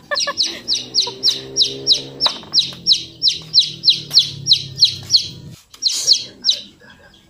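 A bird calling a rapid string of sharp, high, falling chirps, about three or four a second for some five seconds, then two more chirps near the end.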